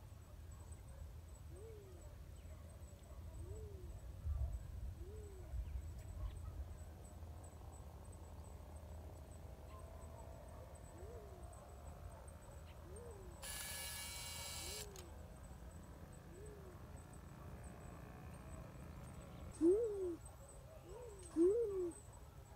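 Black-chinned fruit dove calls: a series of low hooting notes, each rising and falling in pitch, repeated every second or two, with two louder ones near the end. A brief burst of hiss comes a little past the middle.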